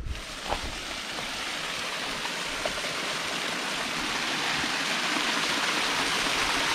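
A small stream running and splashing over rocks: a steady rush of water that grows gradually louder.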